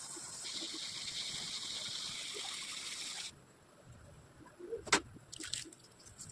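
Water pouring steadily into a cooking pot, stopping suddenly after about three seconds, then a single sharp clink of a metal utensil and a few light knocks.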